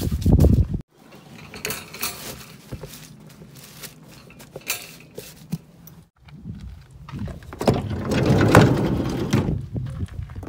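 Rustling and crinkling of puppy pads and towels being smoothed into a plastic dog crate, broken off abruptly twice, with a heavy low rumble over it that is loudest near the end.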